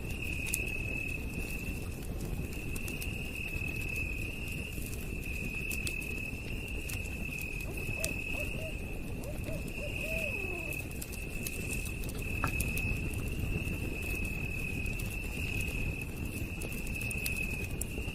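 Campfire crackling with scattered sharp pops over a low rumble, under a steady high-pitched chorus of night insects trilling in even pulses. A few faint, short low calls come near the middle.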